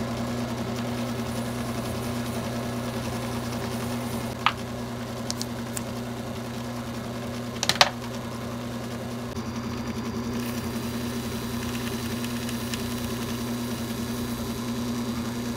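Taig micro lathe's motor running with a steady hum while its cutting tool turns down a spinning wax tube. A couple of short sharp clicks come about four and a half and eight seconds in.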